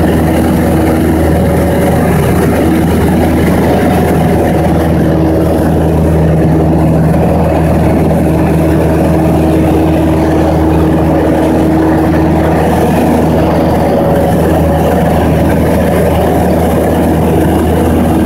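Light aircraft's piston engine and propeller droning steadily in cruise, heard from inside the cabin as a loud, even hum with a few steady pitched tones.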